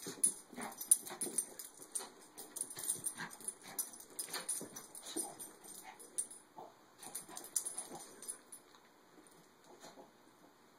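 Two Maltese dogs play-fighting: a run of short, irregular dog vocal sounds mixed with scuffling. It grows quieter in the last couple of seconds.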